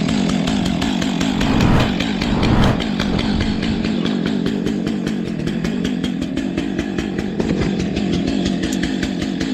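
Chainsaw running steadily at high revs, briefly louder about two seconds in.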